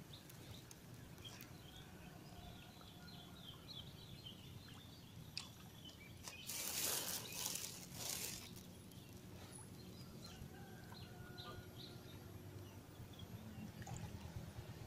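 Faint outdoor ambience of birds chirping, many short chirps scattered throughout, with a brief rush of noise lasting about two seconds just past the middle.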